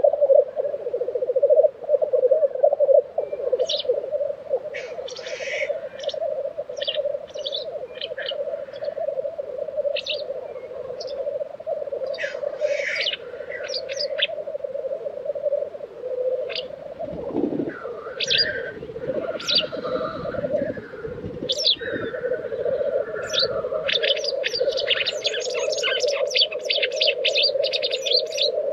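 Black grouse lek: male black grouse keep up a continuous low, bubbling rolling call, with sharp hisses repeatedly breaking in over it. The hisses come thick and fast near the end.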